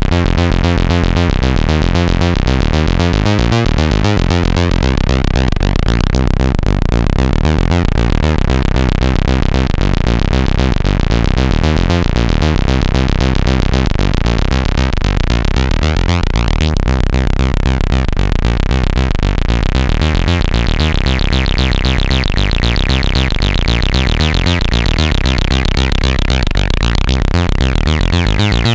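Behringer Odyssey analogue synthesizer playing a fast, repeating bass-heavy note pattern, with the filter sweeping the tone brighter and darker. About two-thirds of the way through it turns much brighter and buzzier and stays so.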